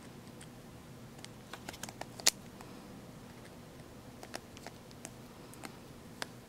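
Faint irregular clicks and ticks of a small precision screwdriver driving a tiny screw back into the bottom edge of an iPhone 4, with a cluster of clicks and one sharper click about two seconds in, then single ticks spaced out.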